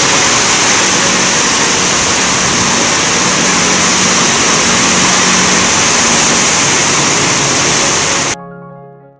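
Steady loud rushing noise, like water or wind, with faint music beneath it. The rushing cuts off abruptly about eight seconds in, and the music fades out after it.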